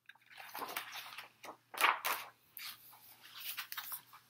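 Pages of a hardback picture book being turned and the book handled: paper rustling in several short bursts, loudest about two seconds in.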